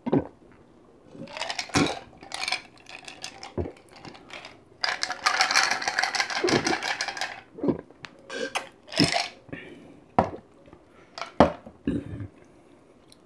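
Iced sikhye (Korean sweet rice drink) being gulped from tall glasses, with a longer stretch of slurping and sloshing in the middle. Ice and glass clink as the glasses are tipped and set down on a table.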